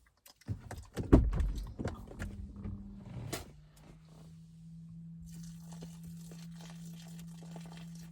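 A run of knocks, clicks and rustling with one loud knock about a second in, then a steady low hum.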